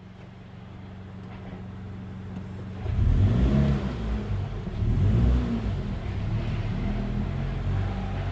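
Subaru BRZ's flat-four boxer engine idling, then pulling away in gear about three seconds in, its revs rising and falling under load. It has a rattling noise on moving off that the owner takes for manual-transmission gear rattle, and that the dealer puts down to the reverse-gear synchro and calls harmless.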